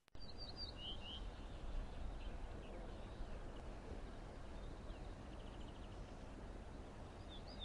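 Steady outdoor background noise with a small bird chirping in quick, short notes just after the start and again near the end.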